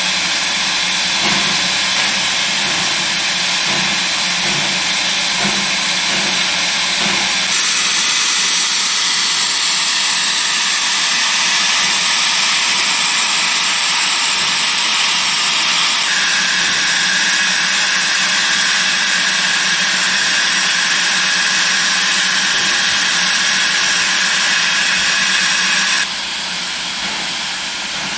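Steam locomotive with a loud, steady hiss of escaping steam and a faint rhythmic pulsing in the first few seconds. The hiss changes character about seven seconds in, a steady higher tone joins it about halfway through, and it drops in level near the end.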